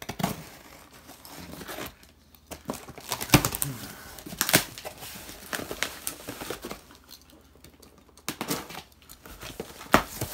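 A box cutter slicing the packing tape on a long cardboard box, then the cardboard flaps being pulled and torn open, with scraping, crinkling and several sharp snaps of cardboard.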